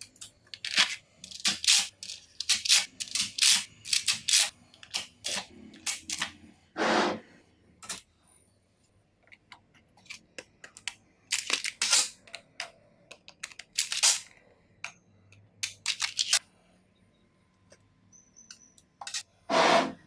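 Small magnetic balls clicking and snapping against each other as rows of them are pressed onto a built-up block, in quick runs of sharp clicks. There are a couple of longer, noisier bursts, one about seven seconds in and one near the end.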